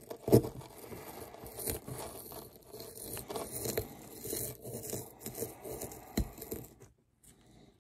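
Small digging tool scraping and chipping into a hard dig-kit ball, a steady crumbly scratching with a few sharp knocks; it stops about a second before the end.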